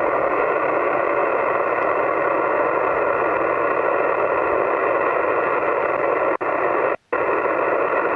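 HF receiver static from a Yaesu FT-991A transceiver's speaker: a steady, even hiss of 20-meter band noise heard through the narrow voice passband of a sideband receiver, with no caller audible over it. It cuts out briefly twice near the end.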